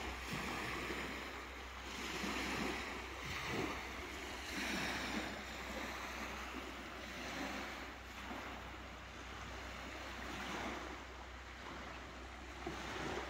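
Small lake waves washing onto a sandy shore, the wash swelling and ebbing every two seconds or so, with a steady low rumble of wind on the microphone.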